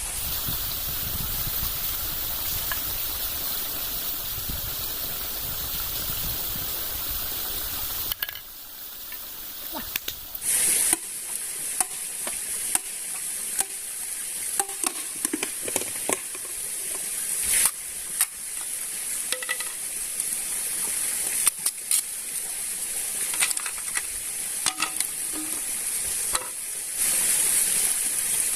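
Food sizzling as it fries in a pan or pot over a campfire, a steady high hiss broken by sharp clicks and knocks of stirring and utensils. A more even, lower rushing noise fills the first few seconds before the sound changes abruptly.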